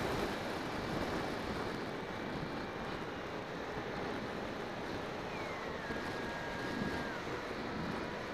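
Wind rushing over the microphone of a keychain camera riding on a Bixler 2 RC plane in flight, with the faint thin whine of its electric motor and propeller. The whine glides down in pitch about five seconds in and drops again near the end.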